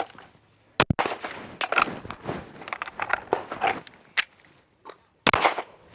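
Two pistol shots about four and a half seconds apart, one about a second in and one near the end, each with a short ring after it. Between them come clicks and rattles of a one-handed reload: the pistol set back in its holster with the slide locked to the rear, a fresh magazine seated, and the slide sent forward on the draw.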